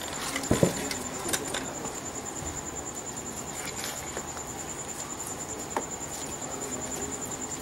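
Steady high-pitched pulsing insect trill over background hiss, with a few scattered clicks and a dull thump about half a second in.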